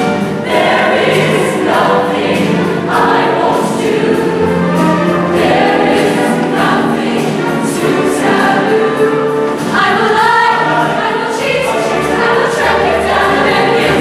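Show choir singing in full voice over instrumental accompaniment with steady bass notes.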